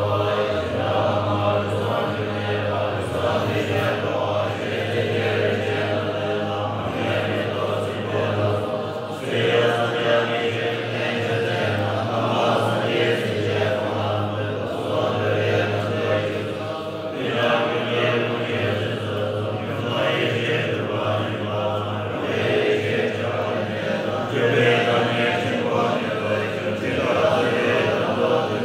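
Tibetan Bon monks chanting together in low voices, a continuous recitation with short breaks between phrases.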